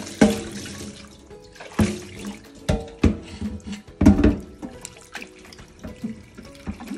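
Tap water running into a stainless steel pan in a metal sink, with several sharp metallic clanks and ringing as the pan is handled against the sink during rinsing.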